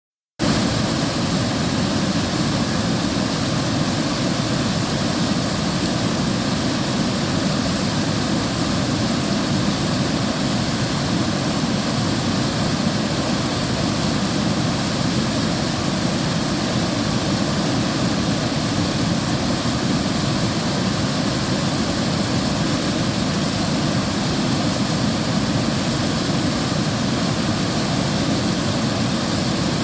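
River water rushing, a steady, even noise that begins about half a second in.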